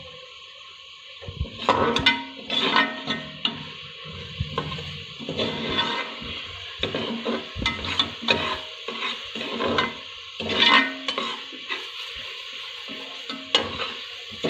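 Steel ladle stirring and scraping a masala paste frying in oil inside an aluminium pressure cooker: repeated uneven metal-on-metal scraping strokes over a steady sizzle, starting about a second in.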